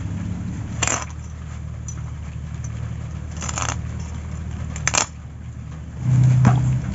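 A few sharp knocks and scrapes as a pangas catfish is chopped on a boti blade and its pieces are set into a steel bowl, over a steady low hum.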